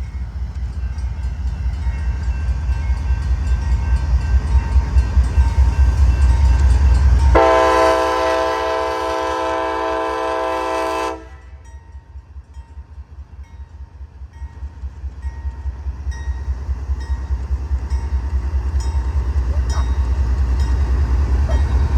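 CSX freight locomotive passing with a loud, low rhythmic rumble of engine and wheels, sounding its multi-note air horn in one long blast of about four seconds that cuts off suddenly; the rumble drops back, then builds again as the train keeps rolling by.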